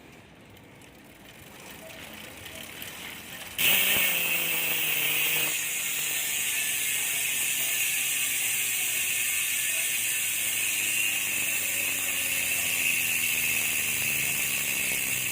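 Rear freehub with six pawls clicking in a fast, steady buzz as the back wheel freewheels. It starts suddenly and loud about three and a half seconds in, then slowly drops in pitch as the wheel spins down.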